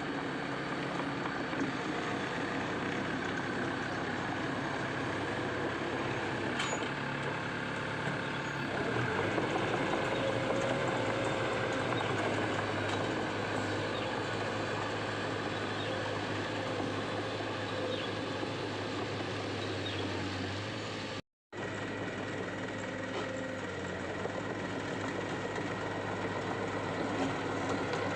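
Heavy diesel engine running steadily, its note shifting to a different pitch about nine seconds in; the sound cuts out for an instant about two-thirds of the way through.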